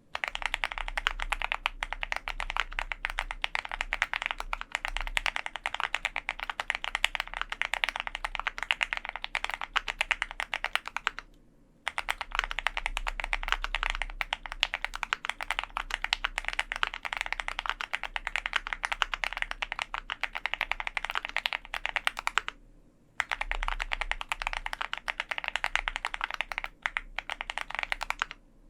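Typing on an OwLab Mr. Suit custom mechanical keyboard with lubed Drop Holy Panda X tactile switches, an aluminium plate, foam dampening and GMK keycaps: a fast, dense run of keystrokes, broken by brief pauses about eleven and twenty-two seconds in.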